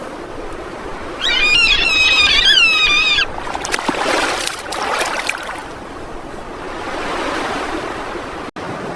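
A single high, wavering animal call lasting about two seconds, followed by the wash of sea waves.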